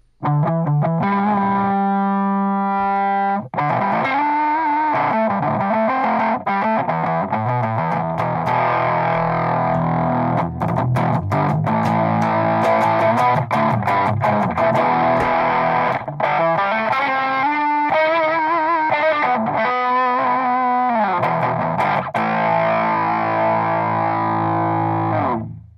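Electric guitar played through Source Audio's LA Lady overdrive and El Raton Rat-style distortion, chords and riffs with a distorted tone and some wavering, bent notes in the middle. The playing stops just before the end.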